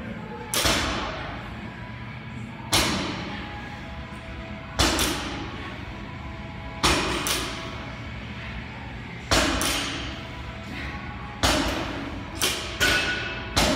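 Iron weight plate, hanging from a chain belt, knocking down onto the rubber gym floor at the bottom of each weighted hip lift. It strikes sharply with a short ringing tail about every two seconds, seven times, and a few strikes come with a quick second knock.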